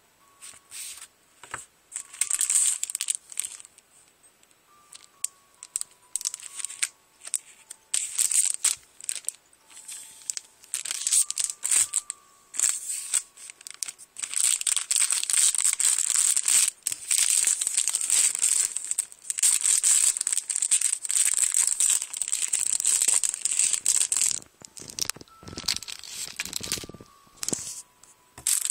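Clear plastic cellophane packaging crinkling and rustling as it is handled and opened, in irregular bursts with a long continuous stretch of crinkling in the middle.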